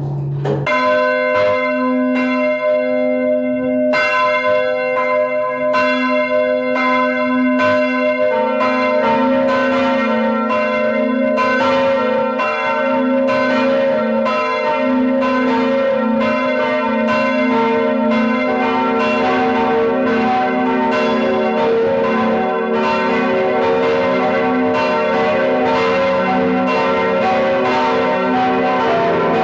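Church bells ringing close up in the bell tower. One bell starts just under a second in, a second joins at about four seconds and a lower third at about eight, and from then on they ring together in a full peal.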